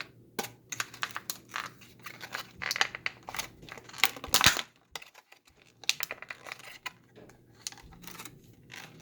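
Plastic packaging crinkling and clicking as a small model is worked free of the plastic insert in its container: irregular sharp clicks and crackles, loudest in a cluster about four seconds in.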